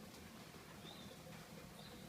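Faint bird calls: two short high notes, one about a second in and one near the end, over a faint steady low hum.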